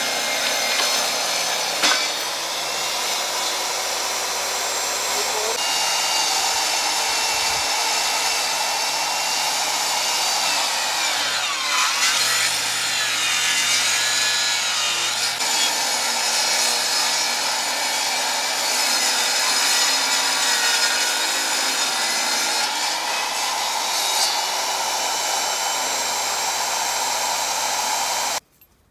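Portable table saw running and ripping a long wooden board lengthwise: a steady cutting noise with the motor's high whine over it, which cuts off abruptly near the end.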